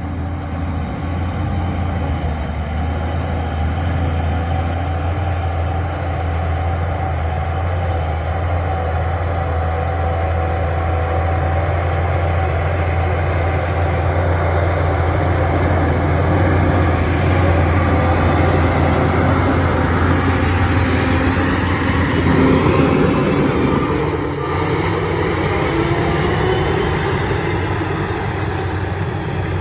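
Diesel engine of a Shantui bulldozer running steadily while it works, a loud deep drone that shifts and briefly swells about three-quarters of the way in.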